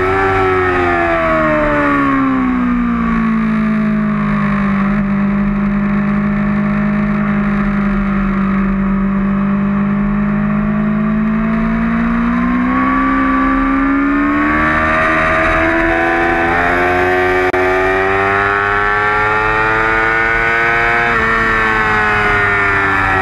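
2008 Yamaha R6's inline-four engine heard onboard: the engine note falls over the first few seconds, holds steady through a leaned-over corner, then climbs again under throttle, with a quick dip and rise near the end like a gear change.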